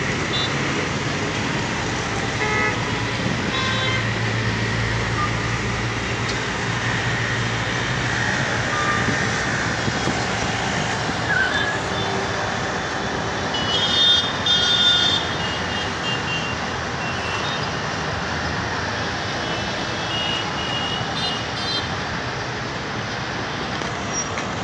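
Steady road traffic noise from a congested city highway, with vehicle horns tooting now and then. The loudest honks come in a cluster about 14 to 15 seconds in.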